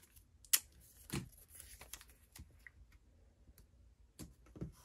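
Faint handling of a roll of washi tape: scattered small clicks and ticks as the tape is peeled off the roll and a strip is pressed down onto a tabletop, the sharpest click about half a second in.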